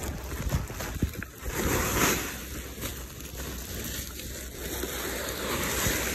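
Wind buffeting the phone's microphone, a steady rushing rumble with a few small knocks from handling.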